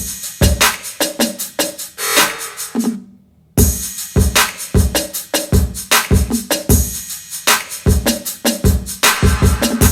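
Modern R&B instrumental with a drum-machine beat of kicks and hi-hats. The music drops out for about half a second around three seconds in, then the beat comes back.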